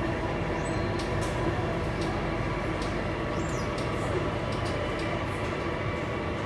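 Alstom Metropolis C830C metro train heard from inside the car while running: a steady rumble of wheels on rail with a steady motor whine, and a few faint high ticks and squeaks.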